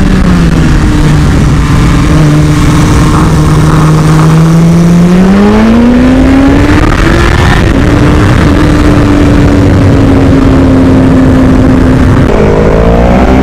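Sport bike engine heard from the rider's seat: the revs fall as the throttle is rolled off near the start, hold low for a few seconds, then climb about five seconds in and settle at a steady higher pitch, rising again just before the end.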